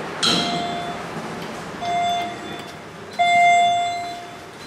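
Elevator chime dinging three times, about a second and a half apart, each ding at the same pitch and fading. The last ding is the loudest and longest.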